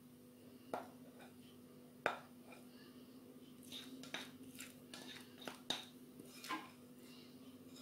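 Spatula scraping and tapping against a bowl while cake batter is poured out: a few sharp clicks, one about a second in, one about two seconds in, then a cluster between about four and seven seconds, over a faint steady hum.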